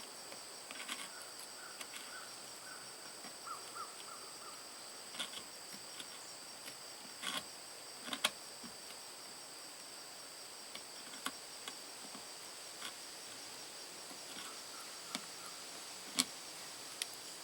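Modified Leatherman Sidekick hook blade carving seasoned maple: scattered short scrapes and sharp clicks as chips are cut and popped out. A steady high insect trill runs underneath.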